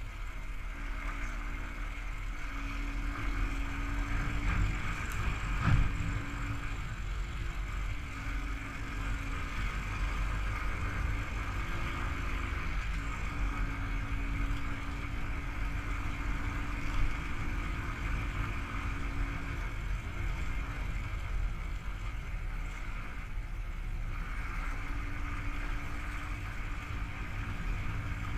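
Royal Enfield Thunderbird's single-cylinder engine running as the motorcycle rides along, under a steady low rumble of wind on the action camera's microphone. There are two brief knocks, the louder about six seconds in and another about seventeen seconds in.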